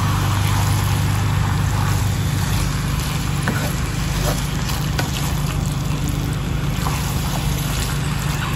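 Chicken, tofu and spinach in oyster sauce sizzling and bubbling in a nonstick wok, stirred with a wooden spatula that gives a few faint ticks against the pan, over a steady low hum.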